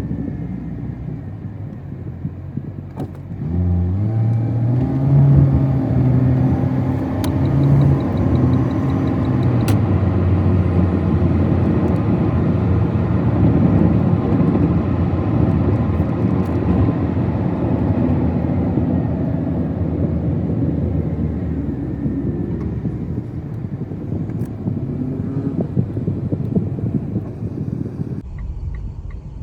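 A car driving, with engine and road noise: the engine picks up speed about four seconds in, then runs at a steady cruise.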